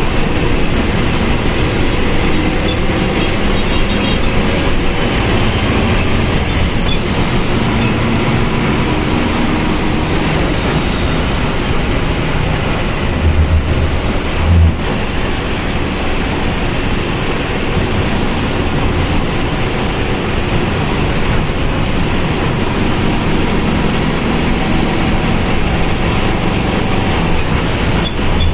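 Volkswagen Volksbus 17.230 OD bus under way: the diesel engine is running and the transmission is growling over steady road noise, its pitch drifting up and down as speed changes.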